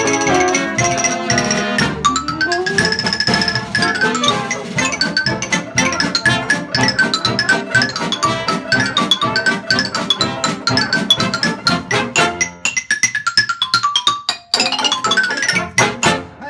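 Xylophone playing fast rising and falling runs over a 1920s-style dance band of brass, reeds, piano, banjo, string bass and drums. Near the end the band drops out for a descending xylophone run, then the band comes back in for the closing bars.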